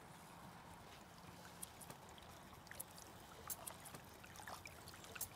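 Faint water sounds: a soft, even trickle with scattered small drips and clicks.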